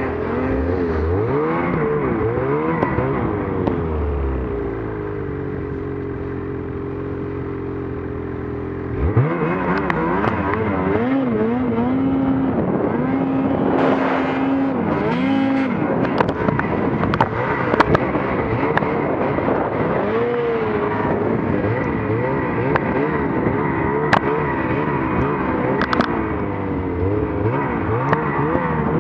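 Snowmobile engine under the rider, revved up and down over and over, easing to a steadier, lower drone for a few seconds before a sharp throttle-up about nine seconds in.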